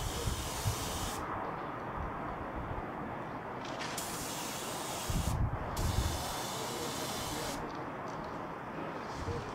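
Small Harbor Freight gravity-feed touch-up spray gun hissing as it sprays paint in short passes: one burst that ends about a second in, then two more close together in the middle.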